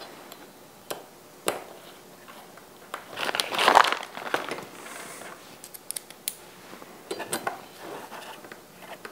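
Small metal clicks and taps as a T-handle hex key drives and tightens screws through an inside-diameter clamp into an aluminium fixture, with a louder brief rustle about three seconds in.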